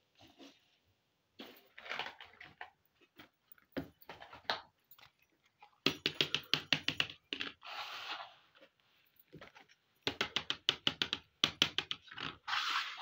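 Small hard-plastic miniature toy pieces clicking and tapping as they are handled and set down, with two quick runs of rapid clicks and a few short rubbing rustles.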